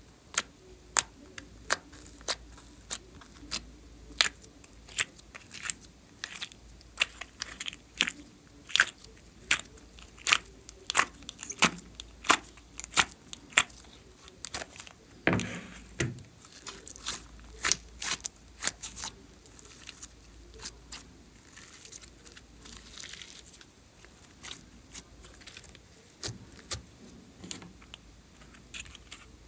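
Glossy slime popping and clicking as fingers press into it and pull it out of a plastic compartment tray. Sharp pops come one or two a second, with a longer squelch about halfway through, then softer and sparser squishing near the end.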